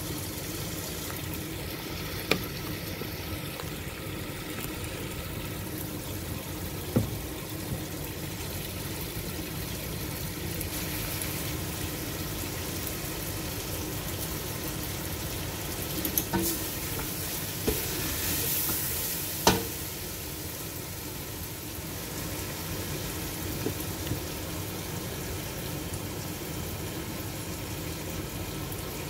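Chicken curry sizzling steadily in a stainless steel pot on the hob, with a few sharp knocks against the pot, the loudest about two-thirds of the way through.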